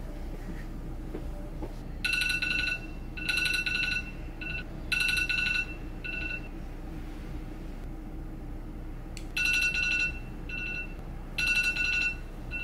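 Mobile phone alarm going off: a repeating pattern of high electronic beeps of one pitch, some long and some short, in two rounds with a pause of about three seconds between them.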